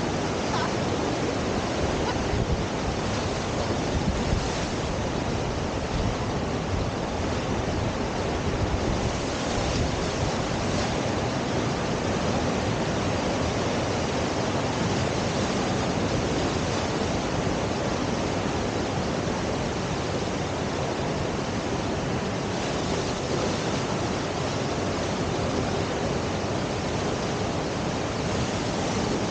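Steady rush of fast river water pouring through a standing surf wave, an even wash of noise with no breaks.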